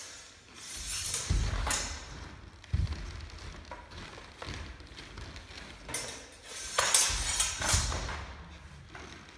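Steel training swords clinking and scraping against each other in the bind, with thuds of bare feet stepping on a wooden floor. The clashes come in two groups a few seconds apart.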